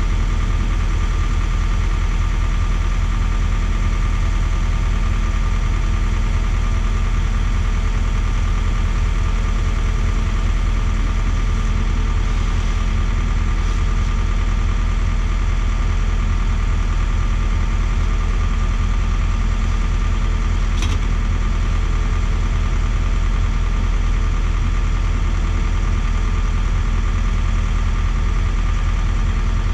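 Engines running steadily at idle: the Schwing trailer concrete pump and the ready-mix truck parked against it, an even hum with no change.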